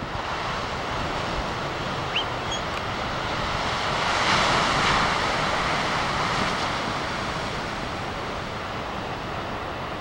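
Heavy surf: large ocean waves breaking, a steady rushing noise that swells to its loudest about four to five seconds in and then eases.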